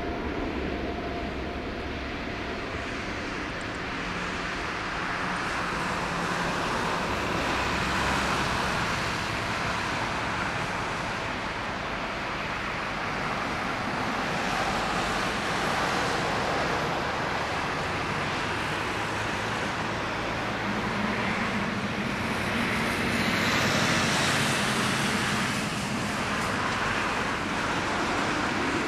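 Boeing 777-300ER's GE90 turbofan engines at taxi power: a steady jet rumble and hiss that swells a little about three-quarters of the way through.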